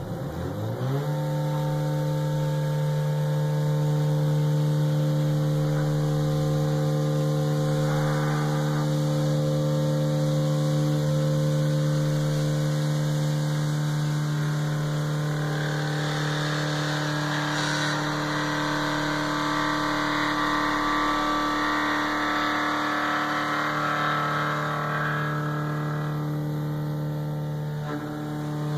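Stepper motors of a homemade CNC router driving the gantry and head across the bed: a steady pitched whine with overtones that rises in pitch as the motors accelerate in the first second, then holds. The machine is running its Grbl homing-and-reposition move.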